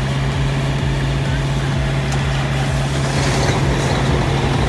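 Semi truck's diesel engine idling with a steady low hum, with a brief hiss about three seconds in.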